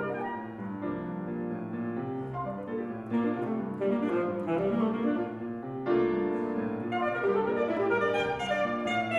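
Alto saxophone and piano playing together in a contemporary classical sonata: held saxophone notes over piano chords, with the music shifting to new notes about three, six and seven seconds in.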